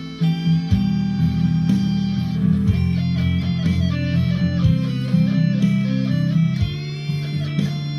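Squier Affinity Stratocaster electric guitar with ceramic single-coil pickups, played through a Boss Katana 50 amp: a line of single notes stepping up and down over low ringing notes.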